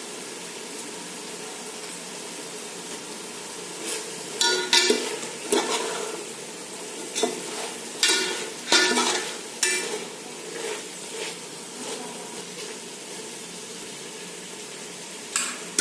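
Chicken and onions frying in ghee in a pan, with a steady sizzle. From about four seconds in, the pan is stirred, giving irregular scraping and clinking strokes against the pan.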